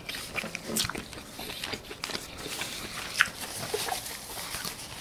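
Close-miked chewing of a thick piece of grilled squid: wet mouth clicks and smacks at irregular intervals, with a sharper click a little after three seconds. The squid is thick and has to be chewed hard.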